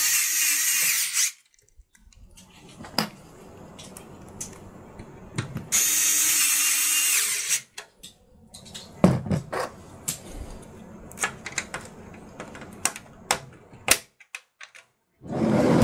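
Power screwdriver running in two bursts, the first at the very start and the second about six seconds in, driving screws into the computer case. Scattered clicks and knocks of parts being handled follow.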